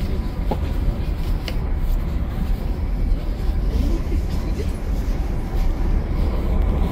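Steady low rumble of a passenger train, heard from inside the carriage, with brief snatches of distant voices.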